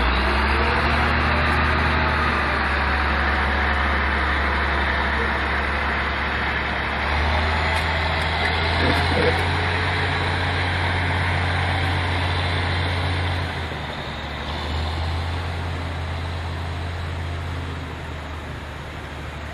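Logging truck's diesel engine running under load, its engine speed stepping up and down a few times and easing off near the end.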